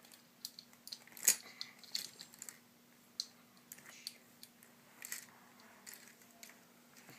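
Scattered small clicks and taps of plastic Lego pieces being handled, with one sharper click about a second in.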